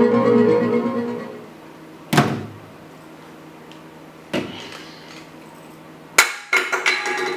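Music fades out, then three separate sharp thuds about two seconds apart, the last followed by a short run of ringing tones.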